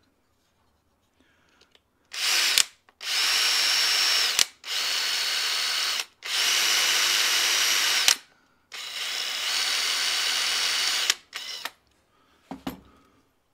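Metabo SB 18 LTX cordless drill drilling a hole through a plastic cistern part. The motor runs with a steady whine in about five bursts, stopping and starting again several times, and there is a short knock near the end.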